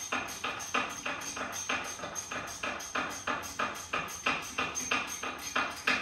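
Half-inch hand ratchet clicking in an even run of about three or four clicks a second while it backs out a rear wheel-bearing hub bolt.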